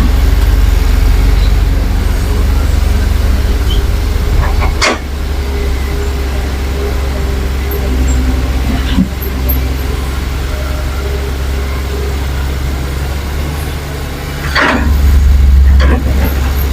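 Heavy diesel earthmoving machinery running with a deep steady rumble, with a sharp knock about five seconds in and another about nine seconds in. The engine swells louder near the end.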